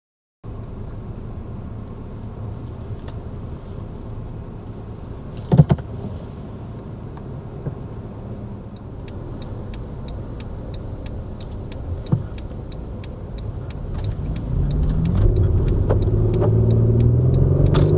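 Car engine and road rumble heard from inside the cabin. There is a single thump about five and a half seconds in, then an indicator ticking about twice a second from around nine seconds. In the last few seconds the engine note rises and grows louder as the car pulls away and accelerates.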